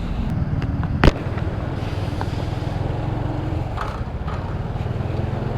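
Honda Revo Fi's small single-cylinder four-stroke engine running steadily at low speed, a low pulsing rumble. About a second in there is one sharp knock.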